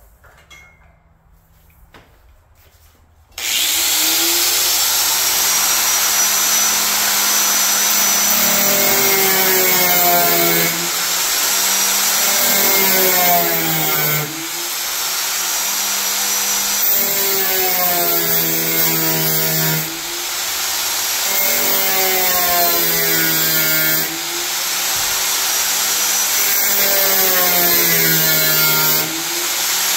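Angle grinder starting up about three seconds in and then cutting through the sheet-metal hood of a 1996 Jeep Cherokee. It runs as a loud, steady whine whose pitch sags and recovers every five seconds or so as the disc bites into the metal.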